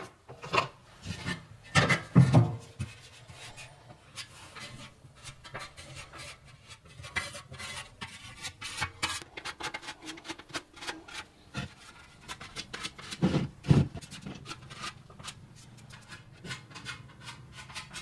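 Hand rubbing and rasping on a workpiece in irregular short strokes, with a few louder knocks about two seconds in and again near the three-quarter mark.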